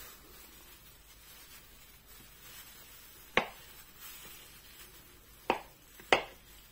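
A potato set down and cut with a kitchen knife on a wooden cutting board: three sharp knocks of potato and blade on the board, one about halfway through and two close together near the end, with quiet between.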